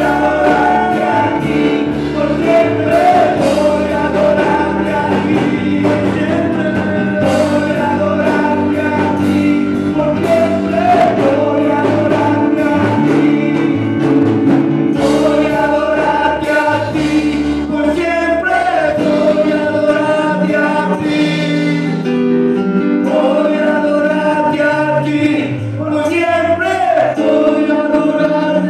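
A Spanish-language worship song performed live: a man sings while playing a Yamaha electronic keyboard, with a woman singing along. Held sung notes over steady keyboard chords and bass, without a break.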